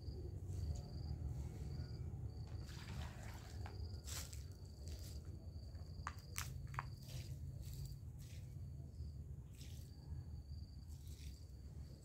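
An insect trilling high and steadily in short repeated phrases, over footsteps on dry dirt and a few sharp knocks and clicks from a plastic dustpan and basin being handled.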